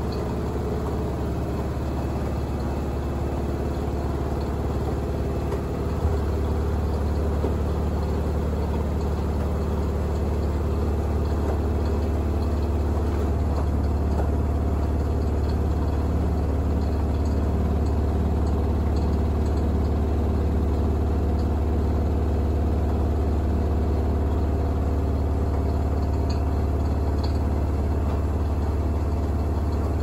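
Kenmore 796.41392.511 front-load washing machine in its final spin, the drum turning at high speed with a steady low hum and whir. It is noisier than usual because of a heavy, unbalanced load. About six seconds in there is a short knock, and the hum steps up a little louder.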